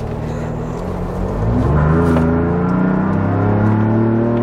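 2.7-litre twin-turbo V6 Ford Bronco accelerating hard through a Corsa cat-back exhaust, heard from inside the closed cabin. The engine note climbs in pitch from about a second in, dips briefly about two and a half seconds in, then climbs again.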